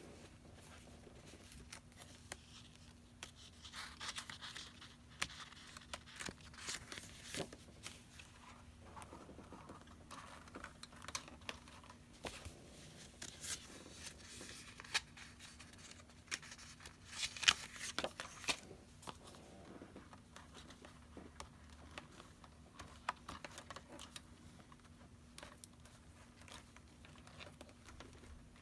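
Faint rustling of punched paper sheets being handled and shuffled, with scattered light clicks and taps; the sharpest tap comes about 17 seconds in.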